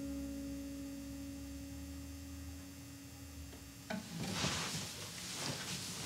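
An acoustic guitar's last chord rings on and slowly fades. About four seconds in comes a sharp click, then rustling and knocking as the player handles the guitar and stands up.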